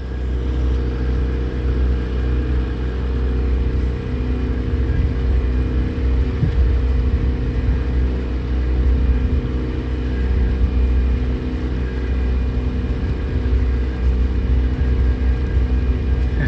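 An engine running steadily at a constant speed, a low rumbling hum with an even pitch that stays level throughout.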